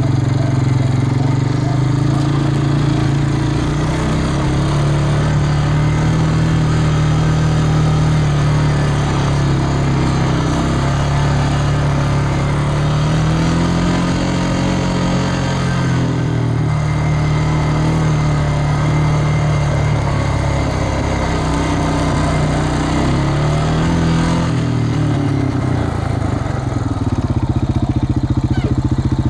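An engine running steadily, its pitch rising and falling a few times as it speeds up and slows down.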